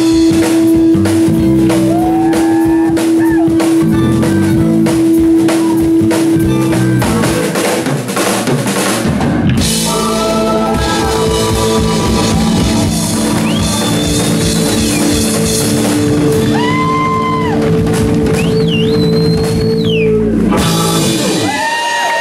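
Live band ending a rock song: drum kit with cymbals, electric bass and acoustic guitar playing hard, then a final chord held under a cymbal wash that stops near the end. The audience starts cheering and whistling just after it.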